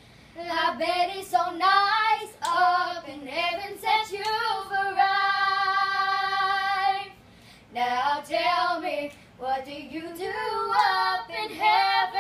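Two young girls singing together without accompaniment, holding long notes, with a short break about seven seconds in.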